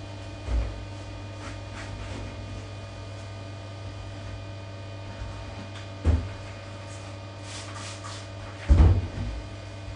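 Scrubbing and wiping inside a bathtub, with a few dull knocks and bumps against the tub and screen (three, the loudest near the end), over a steady low hum.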